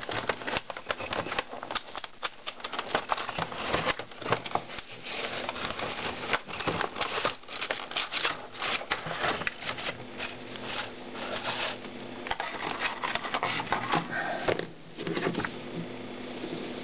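Funko Pop cardboard box and its clear plastic insert being opened and the vinyl figure worked free: rapid, irregular crinkling, scraping and tapping of cardboard and plastic.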